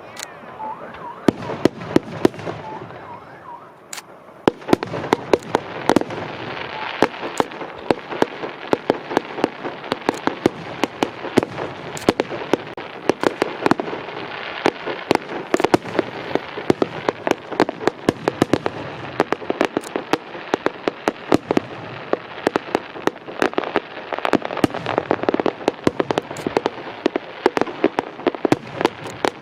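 Fireworks going off in a dense barrage of sharp bangs and rapid crackling, thinner for the first few seconds and then almost continuous from about four seconds in.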